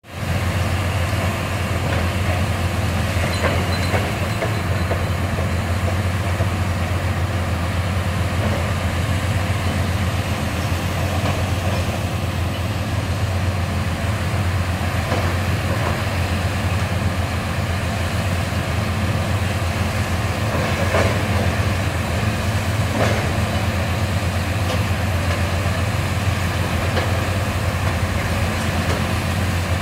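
Demolition excavators' diesel engines running steadily under load, with a few sharp cracks and crunches of reinforced concrete being broken away, two of them close together past the middle.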